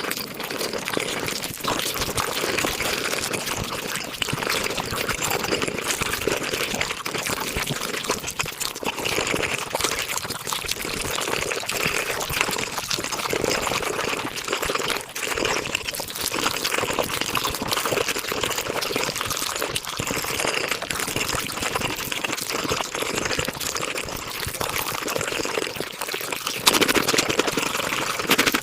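Close-miked eating sounds sped up to five times normal speed: chewing, smacking and slurping run together into a dense, wet, continuous clatter of tiny clicks, a little louder near the end.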